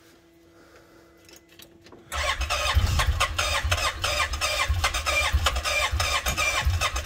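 Electric starter cranking a two-cylinder four-stroke engine in quick, even pulses, starting suddenly about two seconds in. The engine has low compression from worn piston rings, with oil squirted down the cylinder to help them seal.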